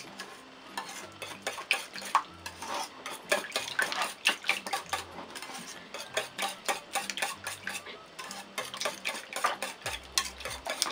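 Metal wire whisk beating a milk, egg and flour batter in an enamel bowl: quick irregular clicking and scraping as the wires strike the bowl, with a short lull about halfway. It is being whisked to break up the flour lumps.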